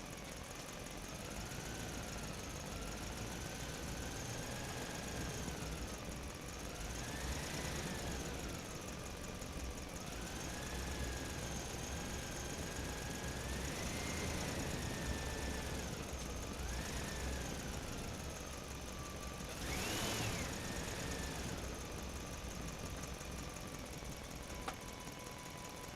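An RC truck's drive running, with a whine that rises and falls in pitch over and over as the throttle changes. It peaks in a sharp rise and fall about twenty seconds in, and there is a single click near the end.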